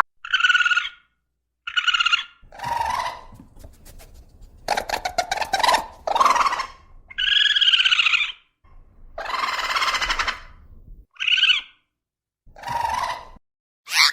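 A sequence of about nine short animal calls and cries, each a second or so long, with brief silences between them. A run of rapid clicks comes about five seconds in.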